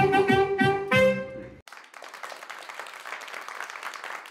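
Saxophone playing a melody, ending on a held note that cuts off abruptly about a second and a half in; then a small group of people clapping.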